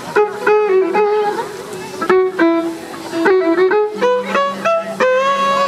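Live acoustic band playing an instrumental tune, a fiddle carrying the melody in a run of short notes with a longer held note near the end.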